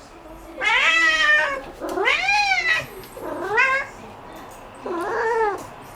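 Domestic cat meowing four times in a row, each call rising and falling in pitch; the loud, insistent meows of a cat that has spotted an insect.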